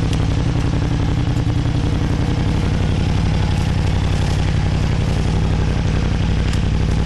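Adventure motorcycle engine running steadily at low revs, with an even low beat.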